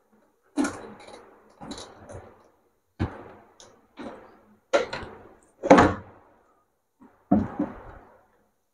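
Plastic clacks and thunks from handling the filter cartridges, tubing and plastic housing of a Nasaka RO water purifier as the filters are fitted back in: about seven separate knocks, the loudest a little before and about six seconds in.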